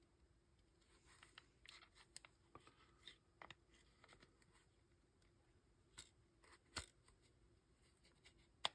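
Near silence broken by faint clicks and rustles of small launcher parts being handled, with a few sharper clicks in the last few seconds as the spring and regulator assembly is picked up.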